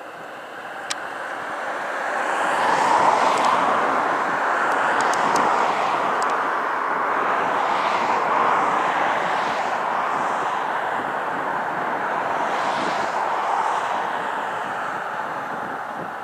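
Large air tanker aircraft's engines running at high power on the runway: a broad rushing engine noise that builds over the first few seconds, then holds with a slowly shifting, swishing quality.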